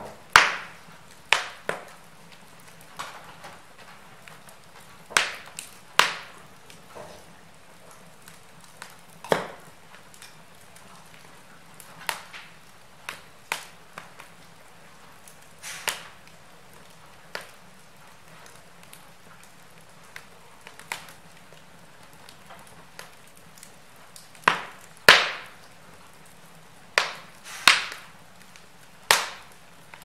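Log fire in an open fireplace crackling: irregular sharp pops and snaps over a faint steady hiss, with a cluster of louder pops near the end.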